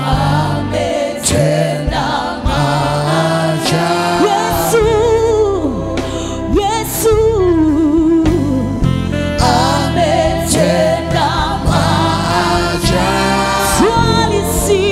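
Live Swahili gospel praise song: voices singing with vibrato and gliding notes over a band's steady bass line.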